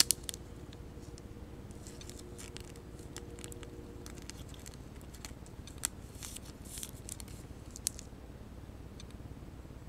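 Faint crinkling and ticking of a thin plastic card sleeve as a trading card is slid into it and handled, with a couple of sharper clicks about six and eight seconds in.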